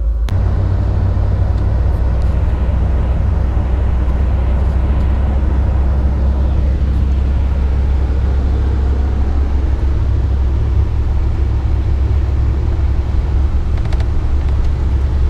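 Pickup truck running: a steady, loud low drone of engine and road noise.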